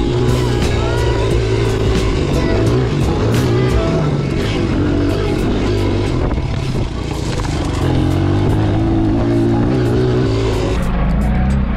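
Pit bike engine running as it is ridden, its pitch rising and falling with the throttle, mixed with background music.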